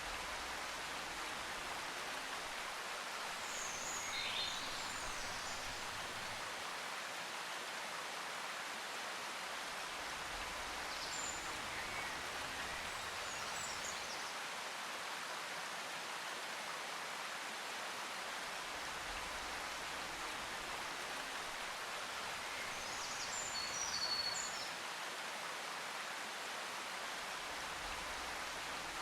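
Steady, even hiss of outdoor ambience like rain or flowing water, with a few short high chirps now and then.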